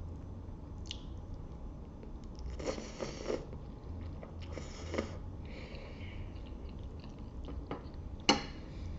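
Close-miked mouth sounds of someone eating spaghetti: chewing and wet mouthfuls in several short bursts, with a sharp click near the end.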